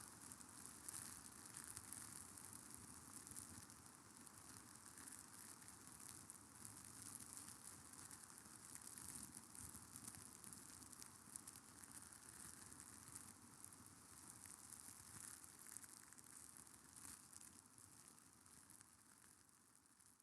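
Faint, steady crackling hiss made of many tiny ticks, fading out near the end.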